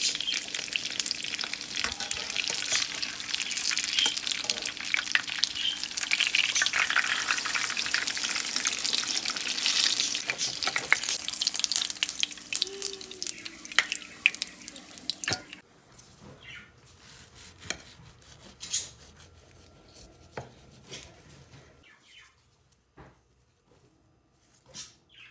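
Libyan ajja, an egg, vegetable and flour batter, frying in a pan: a dense sizzle full of sharp crackles and pops that cuts off suddenly a little past halfway, leaving only a few faint clicks.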